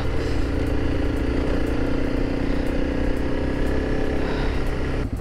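Honda CRF300 Rally's single-cylinder engine running steadily under way on a dirt road, its pitch rising slightly as the bike gathers a little speed. The sound cuts off abruptly near the end.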